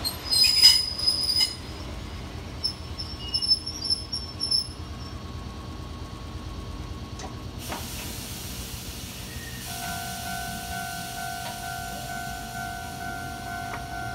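Kotoden electric train's steel wheels squealing against the rails in two short spells over a low rumble. About ten seconds in, a steady high tone starts and holds.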